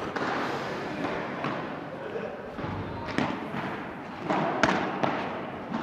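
Padel rally: the ball is struck with solid padel rackets and bounces on the court, sharp hits coming about every second and a half.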